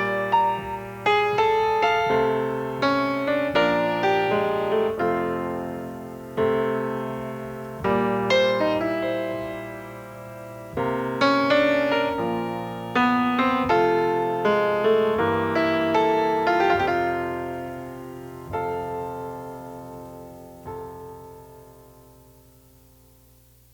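Solo piano playing the film's end-title music in phrases of struck notes and chords, ending on a final chord that rings out and fades away over the last few seconds.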